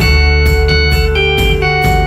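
Instrumental background music: sustained notes changing pitch in steps over a strong low bass.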